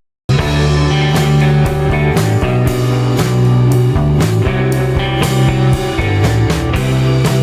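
Background rock music with guitar and drums, cut off for a moment right at the start by a brief gap of silence.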